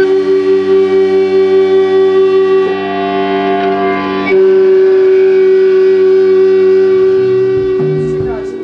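Electric guitar feedback droning through a combo amplifier: a loud held chord of several steady tones, pulsing at first and swelling louder about four seconds in. Drum hits come in near the end.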